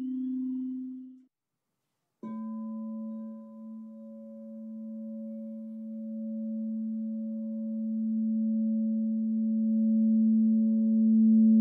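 Tibetan singing bowl ringing. A low hum cuts off suddenly about a second in; after a moment of silence a bowl is struck at about two seconds and rings on as a steady low hum with higher overtones, growing steadily louder.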